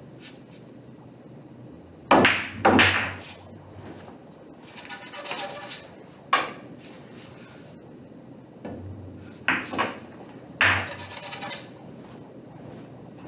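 Pool balls and cue during play: sharp clacks of the cue tip and balls colliding, and balls rattling into pockets, in two shots.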